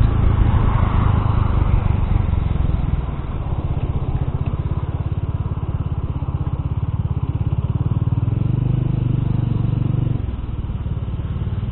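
Motorcycle engine, a Bajaj Dominar's single-cylinder, running under the rider with wind noise. The throttle eases off about three seconds in, picks up again, then closes about ten seconds in as the bike slows off the highway into a side lane.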